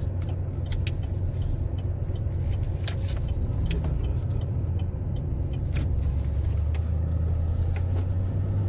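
A vehicle being driven: a steady low engine and road drone that dips in pitch about two thirds of the way through and rises again near the end, with scattered light clicks and rattles.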